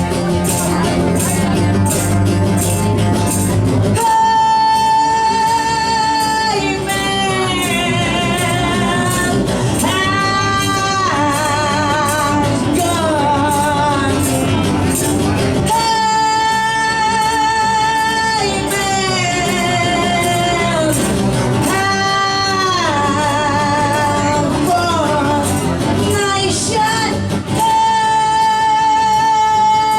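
A live rock trio playing loudly. About four seconds in, a lead line of long held notes with vibrato and bends comes in over the band and keeps returning.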